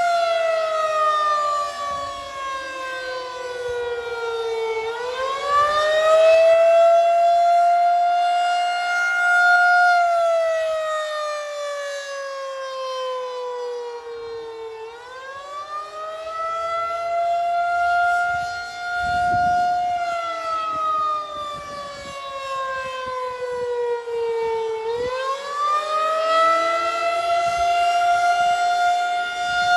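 Federal Signal 2001-SRN "Roundback" electromechanical outdoor warning siren sounding the Attack signal. Its pitch wails up and down: it climbs quickly over a second or two, holds, then sinks slowly over about five seconds, about every ten seconds. The loudness swells and fades as the rotating siren head sweeps past.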